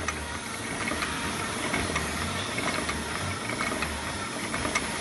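Automatic face-mask-making machine running: a steady mechanical hiss and clatter with scattered light clicks and a low hum that comes and goes in a quick rhythm, as pleated masks are cut and carried off on its conveyor belt.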